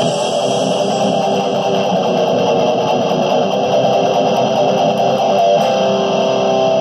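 Electric guitar playing fast-picked metal riffs. About five and a half seconds in, it settles into held, ringing notes.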